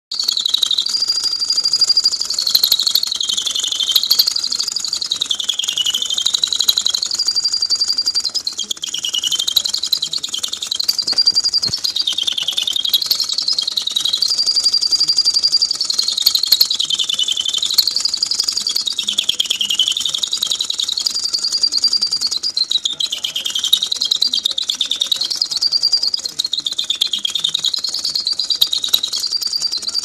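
Köhler tin toy bird chirping: a continuous high, fluttering whistle that slides down and back up about every two seconds, over and over.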